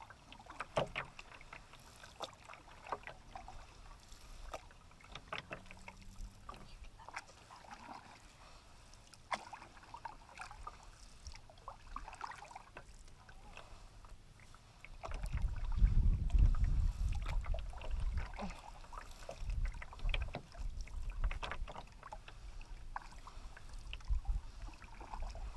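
A canoe being paddled: small splashes and drips of water from the paddle strokes and water lapping along the hull. About halfway through, wind starts buffeting the microphone with a gusty low rumble that runs on to the end.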